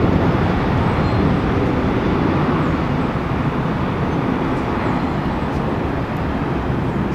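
Jet engines of a Southwest Airlines Boeing 737 rolling down the runway: a loud, steady rush of engine noise that eases slightly over the last few seconds.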